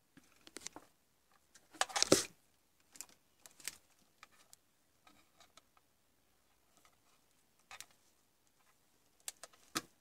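Light clicks and taps from multimeter probes and their leads being handled over a circuit board, with a louder rustling clatter about two seconds in.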